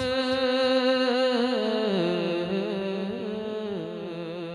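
A man's solo voice singing a naat unaccompanied, holding one long ornamented note that steps down in pitch about two seconds in and slowly fades.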